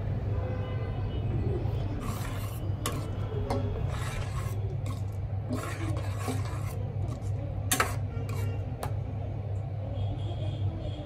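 A metal spoon scraping and stirring thick gravy in a stainless steel pot, with scattered clinks against the pot, over a steady low hum.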